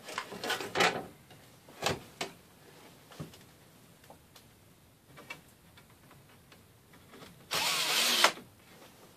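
A few knocks and clatter from handling in the first couple of seconds, then near the end a cordless drill runs for under a second, driving a screw into the cedar table slats.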